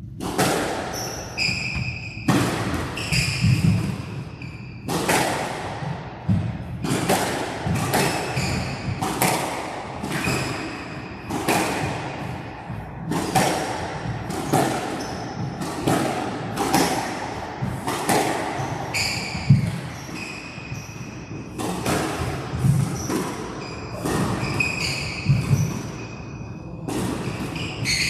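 Squash rally: the ball is struck by rackets and hits the walls in sharp knocks about once a second, with shoes squeaking in short high chirps on the court floor.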